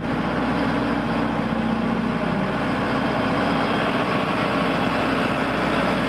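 JCB backhoe loader's diesel engine running steadily as the machine drives forward.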